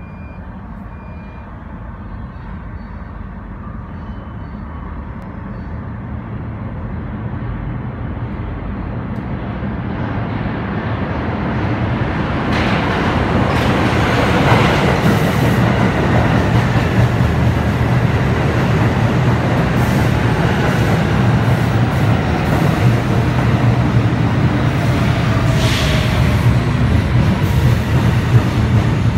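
New York City Subway train of R46 cars approaching through the tunnel and entering the station. Its rumble grows steadily louder over the first half, then holds loud and steady as the cars roll alongside the platform, with falling whines in the middle and later part.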